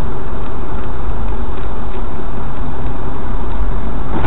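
Steady road and engine noise of a moving car as picked up by a dashcam inside the cabin, with the tyres running on a snow-covered road.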